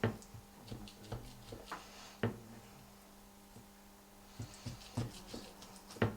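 A knife cutting deeply into a rolled, marinated pork tenderloin on a cutting board: a string of separate knocks and taps, with a steady low hum under them.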